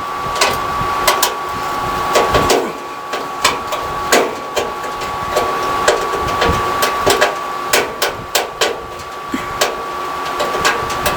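Irregular sharp clicks and knocks of a screwdriver and hands working on the dryer's sheet-metal cabinet while feeling for and backing out the Phillips screws on top. A steady thin high hum runs underneath.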